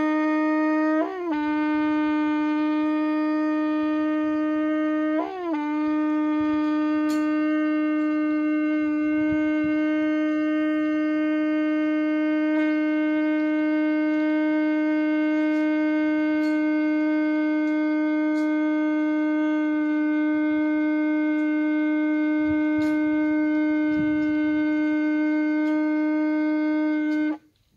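Homemade kudu-horn shofar blown in one long held note. The note wavers upward briefly twice, about one and five seconds in, then holds steady until it cuts off near the end.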